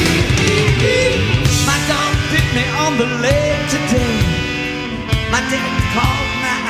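Rock music with a sung vocal and guitar, with a steady beat.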